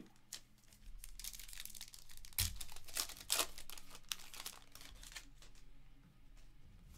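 Foil wrapper of a Panini Diamond Kings baseball card pack being torn open and crinkled in the hands: a run of sharp crackles, loudest in the middle, thinning to faint ticks near the end as the cards come out.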